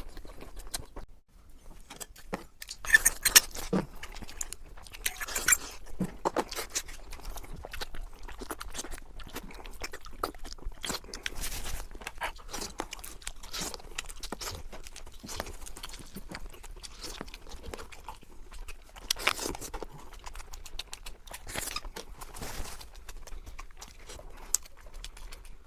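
Close-up eating sounds of someone chewing and crunching seafood: a steady run of small wet clicks and crackles, with louder bursts a few times.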